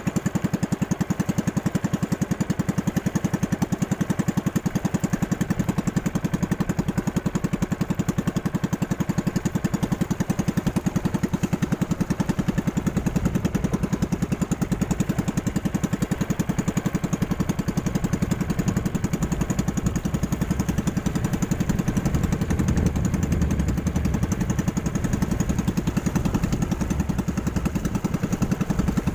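Small boat engine running steadily as a narrow wooden banca cruises across open water: an even, rapid putter, growing fuller in the low end from about halfway through.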